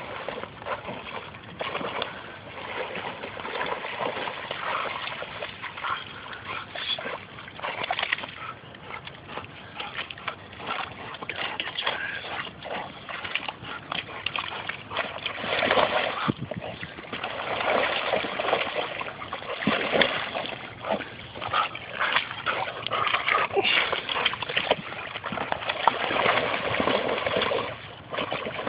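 Water splashing and sloshing as a dog wades in the shallows of a muddy pond, nosing and tugging at a snapping turtle. The splashes come in irregular bursts and grow louder and busier in the second half.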